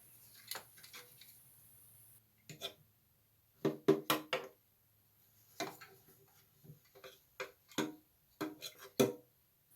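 Plastic toilet fill valve being unscrewed and handled by hand inside the tank: scattered light clicks, knocks and rubbing in short clusters every second or so.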